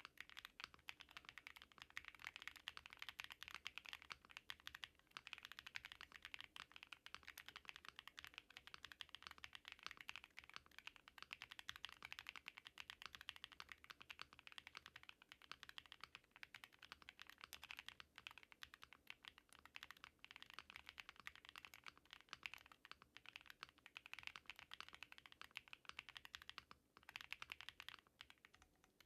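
Continuous rapid typing on an HJS AL65 custom mechanical keyboard with hand-lubed Outemu Ginger linear switches: a quiet, dense stream of key clacks, with a brief pause near the end.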